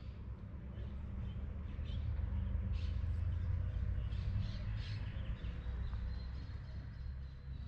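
Birds calling in short high chirps and squawks, scattered through the middle, over a steady low rumble; a thin high note is held near the end.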